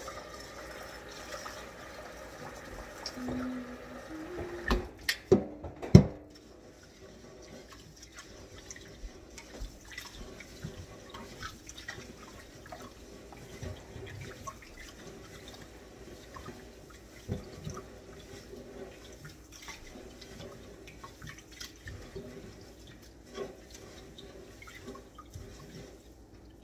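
Dry rice being scooped and poured into a rice cooker's inner pot, a light scattered pattering of small ticks. Three sharp knocks come about five to six seconds in.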